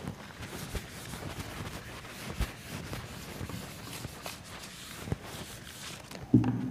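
A whiteboard eraser rubbing back and forth across a whiteboard, a steady scrubbing with a few soft knocks.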